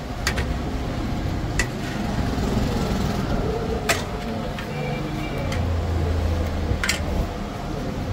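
Roadside traffic noise: a steady low rumble of passing vehicles, with a brief horn about five seconds in and a louder engine going by just after. A few sharp clinks sound over it.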